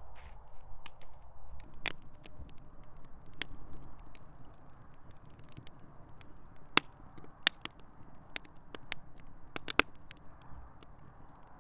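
Scrap-wood fire with a plywood board laid across it, crackling in a stone fire pit: scattered sharp pops over a steady low hiss, the loudest pops about two-thirds of the way through and near the end.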